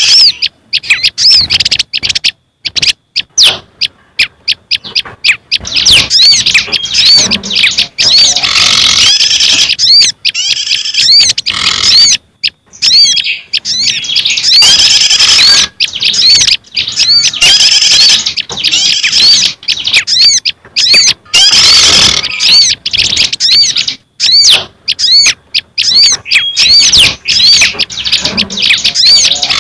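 Bird-lure recording of small songbirds: a looped mix of prinia calls (prenjak and hill prinia) with other small garden birds. Rapid, high chirping phrases come in dense bursts separated by brief pauses.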